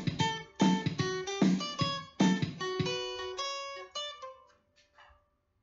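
Acoustic guitar strummed in a steady rhythm, then a short run of single picked notes climbing in pitch, with the last note ringing out and fading away as the song ends.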